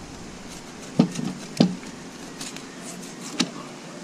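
Three sharp knocks on a fish-cleaning table as a snakehead fillet and knives are handled: two close together about a second in, each with a low thud, and a lighter one near the end.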